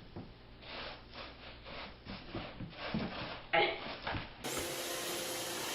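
A cat scratching, a quick series of rasping scratch strokes several times a second. About four seconds in it cuts off abruptly to a steady hum with a faint steady tone.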